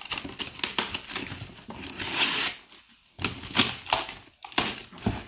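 Scissors slitting packing tape along the seams of a cardboard box: a rapid, irregular run of scraping and crackling as the blade drags through the tape and over the cardboard, with a short lull about three seconds in.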